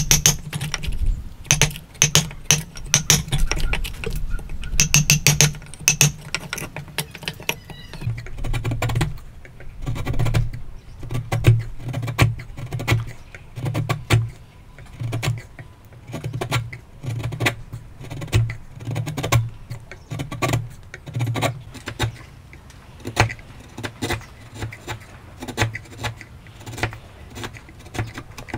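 A steel chisel cutting and paring out a mortise in a wooden beam by hand, the blade biting and levering out chips: irregular sharp clicks and knocks, in quick clusters over the first few seconds, then sparser ticks.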